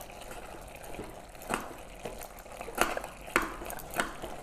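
Steel spoon stirring raw mutton with spices and oil in a pressure cooker: a soft wet mixing sound with four short clinks of the spoon against the pot.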